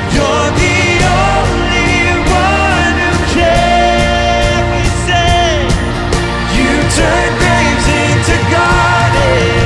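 A worship band playing a Christian song, with a lead singer's melody over sustained chords, bass and a steady drum beat.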